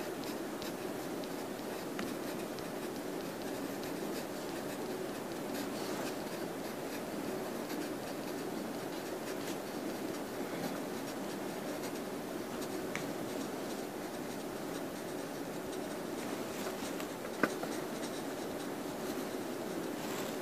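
Pencil writing on paper: a steady soft scratching of the lead across the page, with small ticks of the strokes. A single sharp tick stands out about seventeen seconds in.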